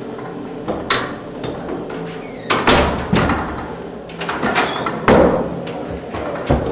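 Metal-framed double swing doors with overhead door closers being pushed open and swinging shut, giving several sharp knocks and clunks, with a brief high squeak about five seconds in.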